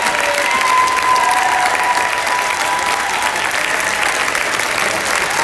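Audience applauding steadily, with a few voices calling out above the clapping.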